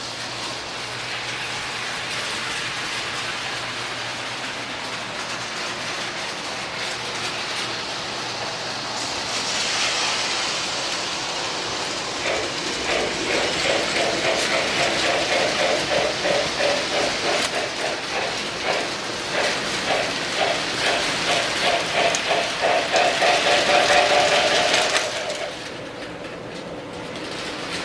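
Toy train running on its track with a steady running noise. From about halfway in, a rhythmic clatter builds louder and then stops abruptly near the end.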